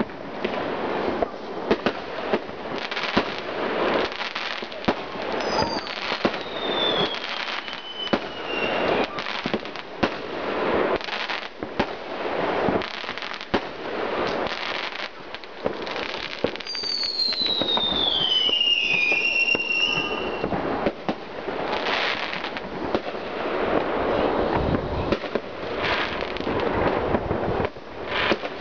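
Fireworks going off in a continuous barrage of bangs and crackles from bursting shells. Twice a whistle falls in pitch, once about five seconds in and more loudly about seventeen seconds in.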